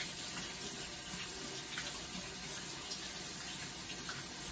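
Kitchen sink tap running steadily as flour is rinsed off a hand under the water.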